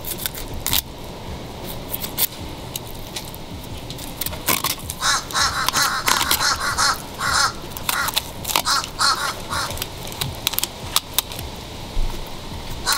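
A bird calling in a rapid run of short, repeated calls, starting about four seconds in and lasting several seconds, with a few more near the end.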